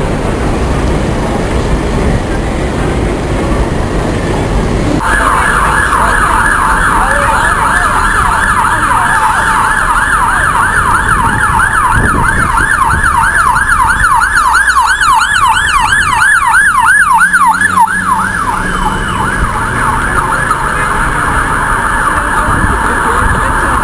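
Ambulance siren on fast yelp, a rapid up-and-down wail about four sweeps a second. It cuts in suddenly about five seconds in and is loudest about two-thirds of the way through, over a steady hum of city traffic and crowd.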